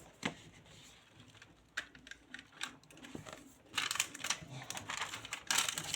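Paperback manga volumes being handled: a few light taps and knocks, then paper rustling from about two-thirds of the way in as a book is opened and its pages turned.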